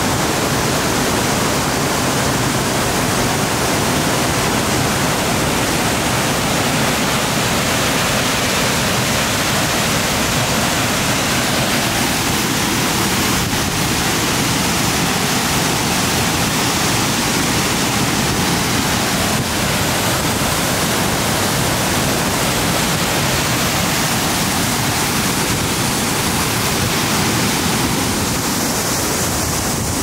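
Upper Latourell Falls plunging into its pool: a loud, steady rush of falling water.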